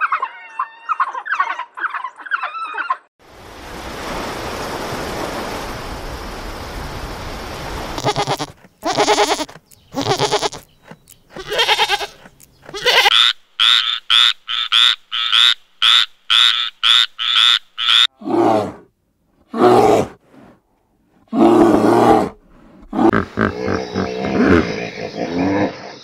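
A string of different wild animal calls, one clip after another. It opens with the high, bird-like twittering of an African wild dog and moves into a few seconds of steady hiss. A quick run of short repeated calls follows, about two a second, and it ends with lower, heavier calls.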